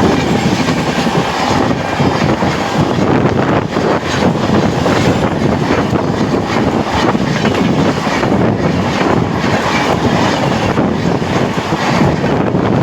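Indian Railways express passenger train passing close by at full speed: a steady rush of coaches with rapid wheel clatter over the rail joints and wind buffeting the microphone.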